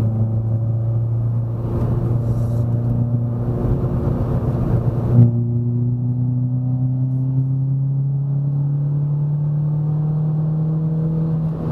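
Renault Sandero RS's 2.0-litre four-cylinder engine pulling uphill under load, running loud through an exhaust with the rear muffler removed. About five seconds in there is a single sharp bang, and after it the engine note rises slowly as the revs build.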